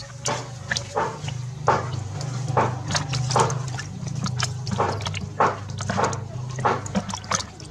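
A fish splashing in shallow water in a plastic bucket as a hand grabs for it: short irregular splashes, one every half second or so, over a steady low hum.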